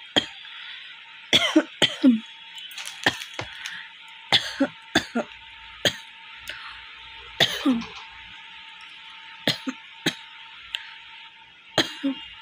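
A woman coughing repeatedly in short bursts, in quick clusters of two or three, some with a brief voiced rasp. It is a dry cough without phlegm, which she puts down to acidity rather than a cold.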